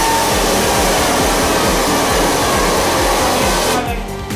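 Steady rush of compressed air from a blow gun spinning a homemade propane jet engine, under background music with a steady beat. The sound thins out briefly near the end.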